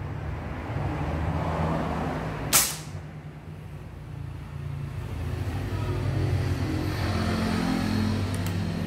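A single shot from a Semar air rifle about two and a half seconds in: one sharp crack that rings briefly, over a steady low motor hum.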